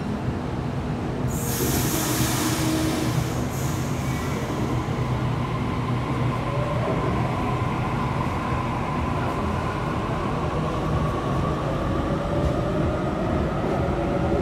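Sydney Trains B set (Waratah Series 2) electric double-deck train departing: a sharp hiss of air about a second in, a second shorter one soon after, then a steady rumble with traction motors whining and slowly rising in pitch as it pulls away.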